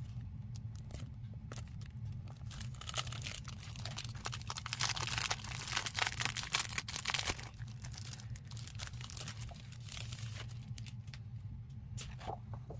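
Paper and packaging being handled, rustling, crinkling and tearing as a wrapped package of patterned paper sheets is unwrapped and leafed through. The rustling is loudest in the middle.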